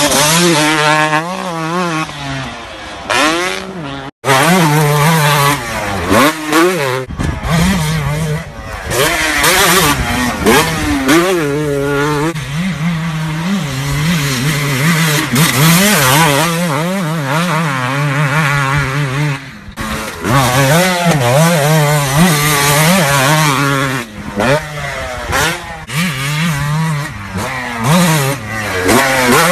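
Two-stroke motocross dirt bikes revving hard while being ridden, the engine pitch climbing and falling again and again as the throttle opens and shuts through the gears. The sound cuts out abruptly about four seconds in.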